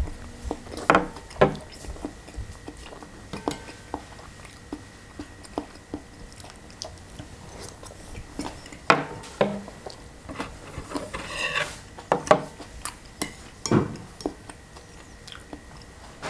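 Eating utensils clinking and tapping against a bowl of cold noodle soup at irregular moments, with chewing between the clinks.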